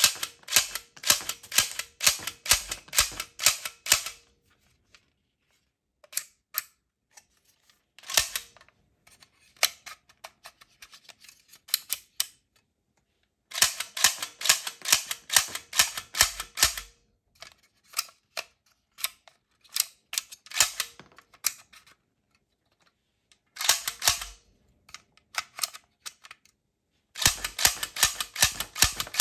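Plastic toy blaster firing in rapid volleys: sharp mechanical clicks about four a second, in several bursts with pauses between them.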